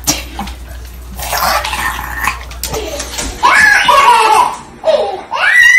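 Noisy clatter and scuffling at first. Then a baby laughs in high squealing giggles, the loudest a long rising-and-falling squeal near the end.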